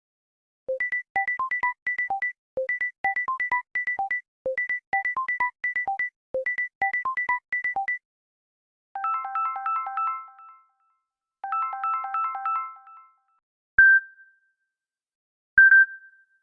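Samsung Galaxy A54 5G ringtones playing: a short synthesized melody of quick beeping notes, a low note followed by higher ones, repeated four times. Then come two longer phrases of stacked chiming tones and two single bell-like dings.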